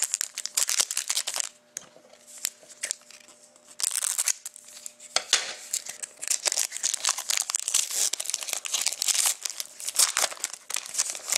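Trading card pack wrapper crinkling and tearing as it is opened, in irregular bursts that grow dense in the second half.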